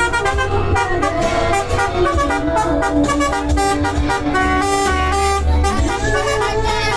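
Multi-tone 'telolet' air horn playing a stepped melody of held notes, with a low vehicle engine rumble underneath.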